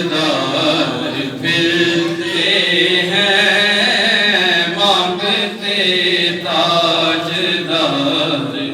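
Voices chanting a naat, a devotional poem in praise of the Prophet, in long drawn-out melodic lines that run without a break.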